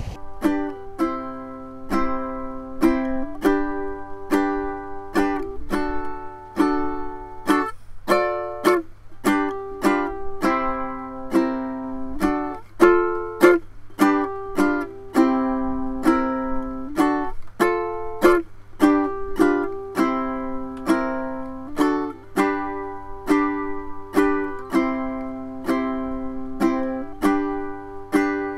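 Background music: a strummed ukulele tune with a steady beat of about two strums a second.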